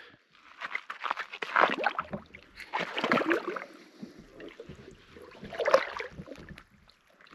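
Water sloshing and splashing in three separate bursts as a person wades and lowers himself into a natural hot spring pool.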